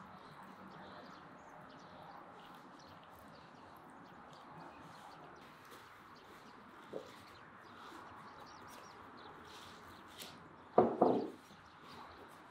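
Faint background with small bird chirps throughout. About eleven seconds in comes a short loud crackling crunch in two quick parts as a crusty flatbread is torn apart by hand.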